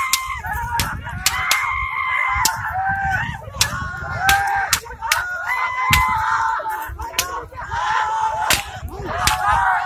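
A crowd of men yelling and whooping in long, high calls, with frequent sharp cracks in between.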